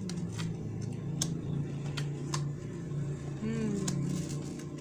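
Playing cards being handled and laid down on a tabletop: several short, light clicks and taps over a steady low hum.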